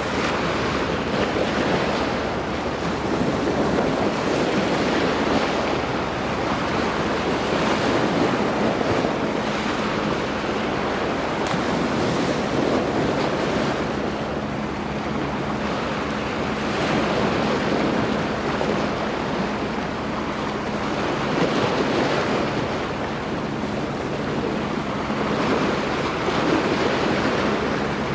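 Small sea waves washing at the shoreline, swelling and easing every few seconds, with wind buffeting the microphone. A faint steady low hum runs underneath.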